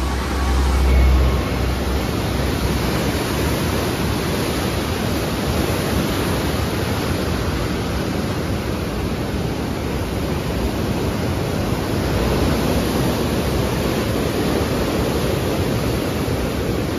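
Loud, steady rushing of floodwater churning through the open sluice gates of a river barrage in heavy discharge, with a brief low rumble about a second in.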